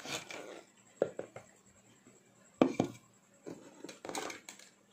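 Handling sounds of kitchen things: a few separate knocks and scrapes, the loudest about two and a half seconds in, with no motor running.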